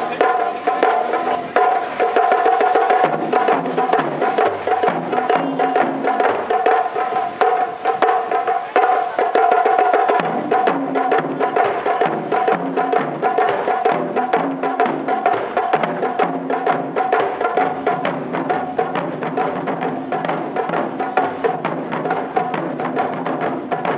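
Japanese taiko drums beaten with wooden bachi sticks by an ensemble in a fast, driving rhythm of dense strikes, with a steady held tone running beneath the beats.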